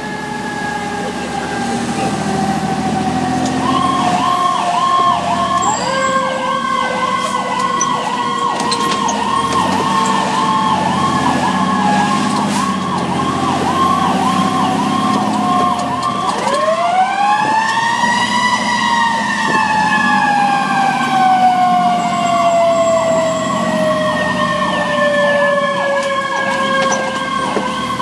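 The sirens of a 2008 Spartan Gladiator rescue engine, heard from inside its cab while it runs on an emergency response. An electronic siren yelps rapidly, about two to three cycles a second, over a second siren's wail that slowly falls in pitch. That wail is wound up again sharply about sixteen seconds in, then coasts slowly down, with the truck's engine droning underneath.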